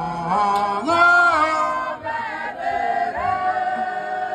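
A dance troupe's mixed men's and women's voices singing a chant together, changing pitch in the first half. About three seconds in they settle onto one long held note.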